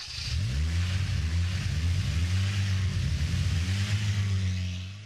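An engine revving, its pitch climbing again and again, then holding steady before cutting off abruptly near the end.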